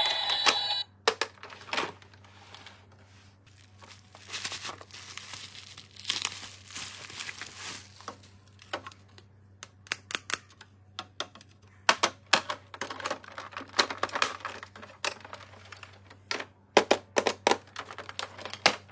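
Plastic toy packaging crinkling and tearing as it is handled and opened, in short irregular crackles and clicks.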